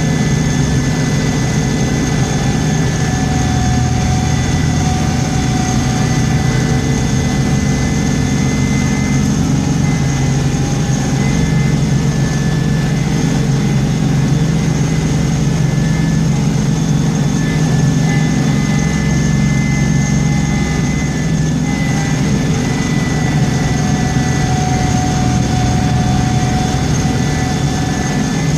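Heavy vehicle engine running steadily, with a few thin, steady whining tones above the low rumble.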